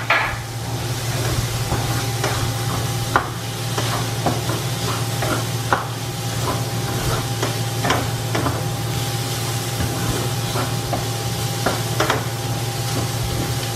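Chopped onions and garlic sizzling in oil in a stainless steel frying pan, being sautéed until soft, with a spatula scraping and tapping the pan at irregular moments over a steady low hum.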